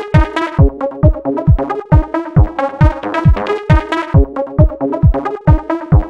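Electronic dance background music: a steady deep kick drum at about two beats a second under a repeating synthesizer melody.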